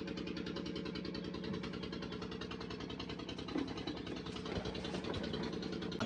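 An engine or motor running steadily: an even low hum with a rapid, regular pulse.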